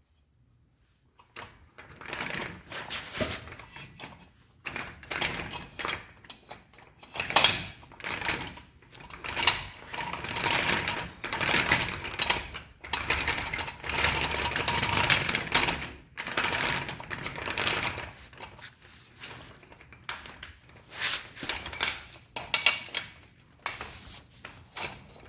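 Small electric motors and gearing of a hand-built RC Cat D11 bulldozer model running in uneven stop-start bursts, with a rattling mechanical clatter.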